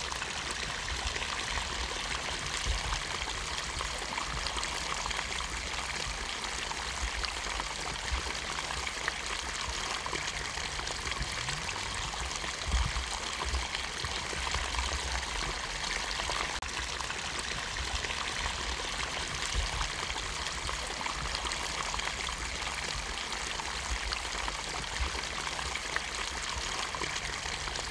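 Steady rush of running water, like a stream, going on without a break, with a few soft low thumps.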